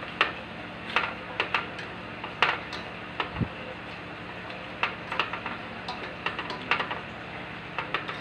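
Black slotted spatula knocking and scraping against a stainless steel pan while stirring pork hock in its sauce: irregular sharp clicks, with one dull thump a little past three seconds in.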